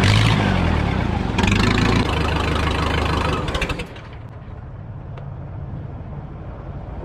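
Case 580 backhoe engine running hard, then easing down to a quieter, steady run about four seconds in.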